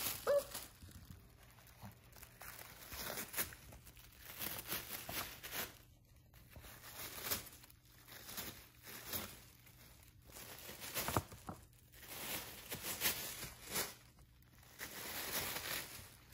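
A Shih Tzu dog crinkling and tearing tissue paper with her mouth, in irregular bursts of rustling separated by short pauses.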